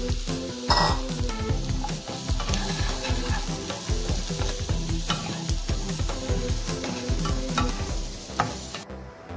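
Wooden spatula stirring chopped mushrooms and onions in a sizzling non-stick frying pan, with repeated short scrapes and clicks against the pan over the steady frying hiss. The sizzling cuts off abruptly just before the end.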